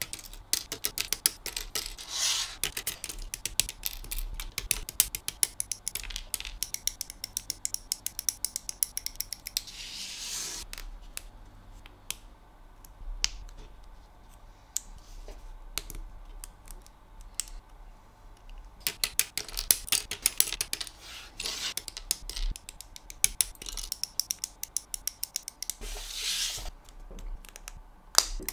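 Small plastic parts of a Flame Toys Optimus Prime model kit clicking and tapping as they are cut from the runner with a hobby knife and fitted together. Dense runs of sharp little clicks are broken by a short scraping hiss about ten seconds in and a sparser stretch after it.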